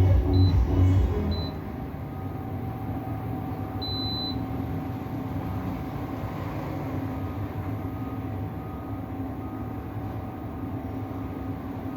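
Induction cooktop running under test: a steady hum with fan noise, and short high control-panel beeps near the start and a longer beep about four seconds in.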